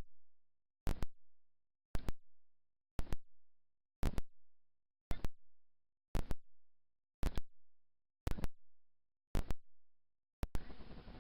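An edited-in electronic beat: a double hit repeating about once a second, each with a short fading tail, with dead silence between the hits.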